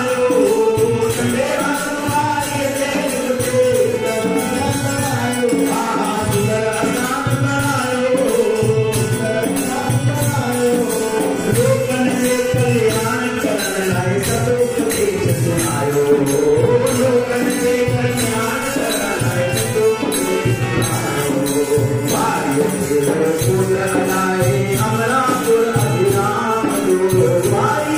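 Devotional bhajan music: a harmonium plays the melody, with percussion keeping a steady beat.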